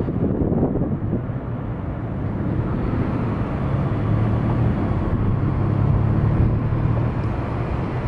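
Low engine drone of a passing boat, swelling about halfway through and easing near the end, over steady outdoor noise.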